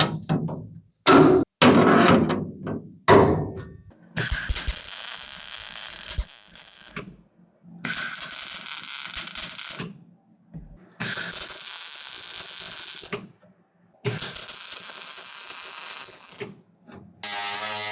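A few sharp knocks in the first three seconds, then a power tool run in four bursts of two to three seconds each with short pauses between. A buzzing hum starts near the end.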